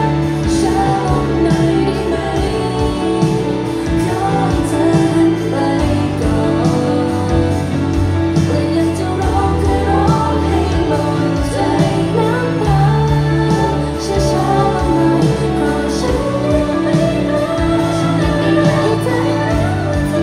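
Pop song with female vocals sung live into stand microphones over a backing track, heard through a concert hall PA.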